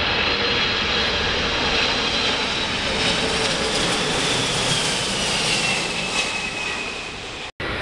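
Boeing 747-400 freighter's four jet engines on final approach, passing low overhead: a steady rush of engine noise with a high whine that falls in pitch from about halfway through as the aircraft goes past. The sound cuts off abruptly near the end.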